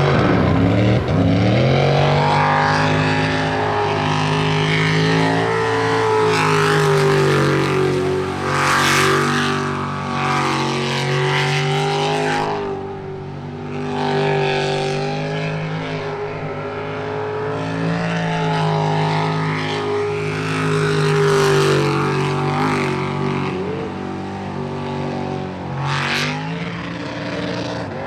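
Jet sprint boat's engine launching and racing at high revs through the course. Its pitch climbs sharply at the start, then rises and falls again and again through the turns, with brief rushing bursts about 9 s and 26 s in.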